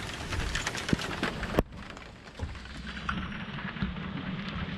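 Rain pattering on the RV, a dense patter of fine ticks, with one sharp click about a second and a half in, after which the rain sounds duller.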